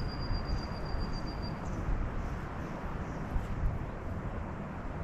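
Wind buffeting the microphone, with a thin high whistled note held for about the first second and a half before it stops.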